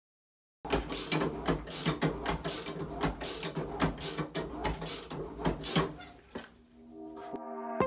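Toilet flush mechanism clattering and scraping over a steady low hum, dying away about six seconds in; music fades in near the end.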